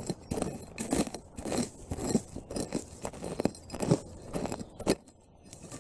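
Small metal hand shovel digging into forest soil and conifer-needle litter: a quick run of scrapes and crunches, several a second, that stops about five seconds in.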